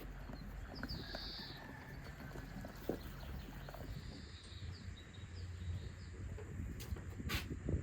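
Outdoor rural background: a steady low rumble with a bird chirping briefly about a second in and again midway, and a couple of sharp clicks near the end.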